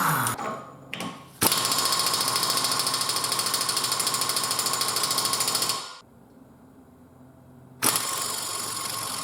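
Impact wrench hammering rapidly on the 36 mm rear half-shaft nut, trying to break it loose. It runs for about four seconds, stops for about two, then starts hammering again.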